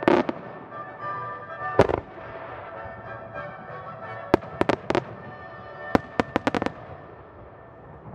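Aerial firework shells bursting with sharp reports, one at a time and then in quick volleys, over background music.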